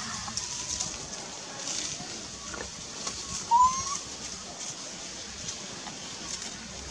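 Quiet outdoor ambience with a single short animal call that rises in pitch, about three and a half seconds in.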